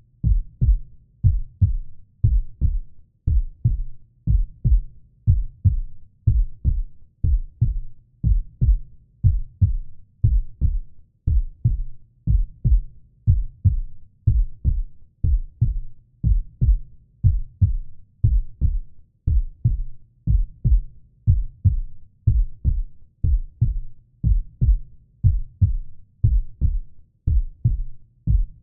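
Heartbeat sound effect: deep low thumps in steady lub-dub pairs, repeating at an even, slow pace.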